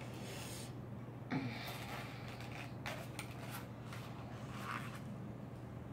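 Faint rustling and handling of a foam drink cup and a paper napkin, with a short hum about a second in, over a low steady background hum.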